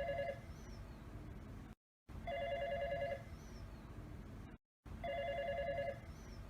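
Fax-machine ringtone: an electronic trilling ring in bursts of about a second, repeating about every 2.7 s over a low hiss. A short break of dead silence comes before each repeat as the recording loops.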